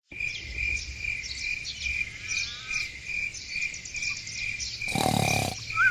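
Crickets chirping in a steady pulse about four times a second, with birds chirping over them. A short, louder burst about five seconds in.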